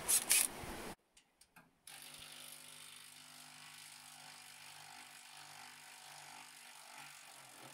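A brief rush of loud noise, then a Makita cordless drill running with a steady, fairly faint motor hum as it backs out the bolts holding an aluminium cover.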